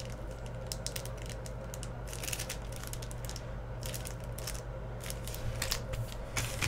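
Thin plastic bag crinkling and clicking in scattered short bursts as it is handled and turned over, over a steady low hum.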